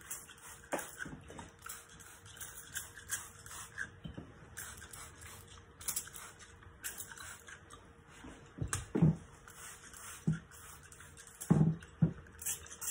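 Trigger spray bottle misting water onto hair in many short, quick sprays one after another. There are a few louder low bumps about nine seconds in and near the end.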